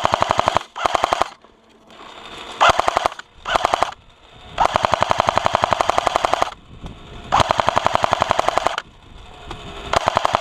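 Airsoft electric gun firing on full auto in about seven bursts of rapid, evenly spaced shots. The bursts are short at first, then two long ones of a second and a half to two seconds come in the middle, with brief pauses between them.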